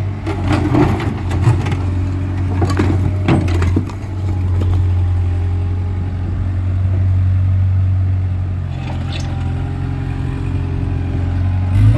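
Skid steer engine running steadily, with a cluster of knocks and clatter in the first few seconds as broken concrete blocks are pushed and dropped, and one more knock near the end.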